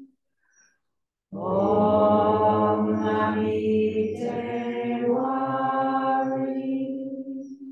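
Buddhist devotional chanting by several voices in unison. After a pause of about a second for breath, one long chanted phrase of held notes follows, stepping up in pitch about halfway through.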